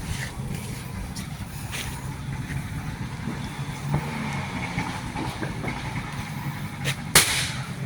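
A steady low rumble in the background, then one loud, sharp firework bang about seven seconds in.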